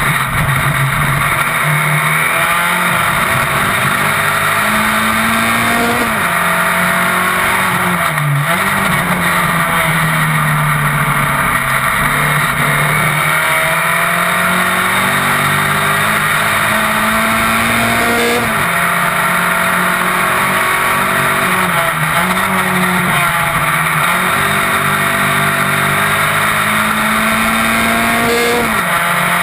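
Single-seater racing car engine at full racing load, its pitch climbing through the revs and dropping sharply at each gear change, several times over. A steady rush of wind and road noise runs under it.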